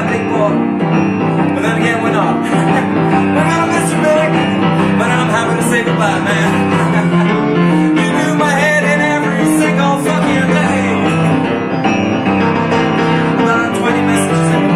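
Blues music on an upright piano with a steady rhythm, and a sliding melody line over it.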